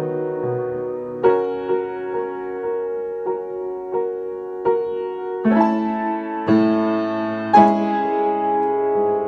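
Upright piano played by hand: a slow passage of sustained chords with single notes between them, the chords struck harder in the second half.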